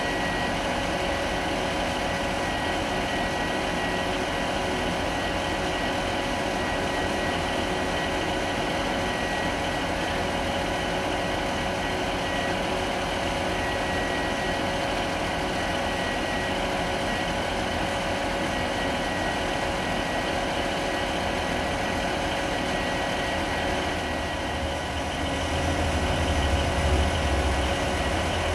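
Steady idling hum with a high whine from a standing train; in the last few seconds the deep engine rumble of an approaching diesel locomotive comes up and grows louder as it draws close.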